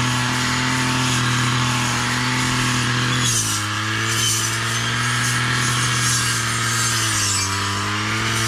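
Two-stroke chainsaw running at high revs while cutting wood, its steady pitch sagging under load about three seconds in and dipping again near the end.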